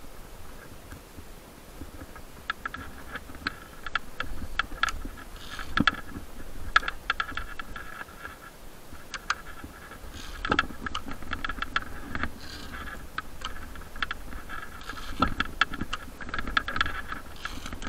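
Tree-climbing gear in use: metal hardware clinking and rope scraping, in irregular bursts of clicks and rasps.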